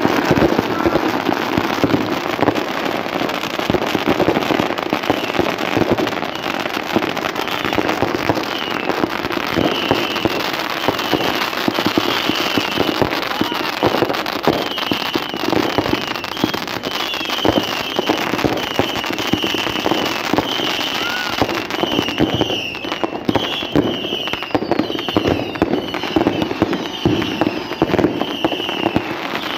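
Consumer aerial fireworks going off in a dense, continuous barrage of popping and crackling reports. Through the second half a short high chirp repeats about once a second, and a few faint whistles are heard near the end.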